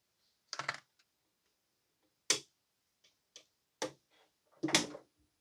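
Flush cutters snipping the excess leads of a freshly soldered replacement diode and capacitor on a circuit board: about five short, sharp snips spread over several seconds.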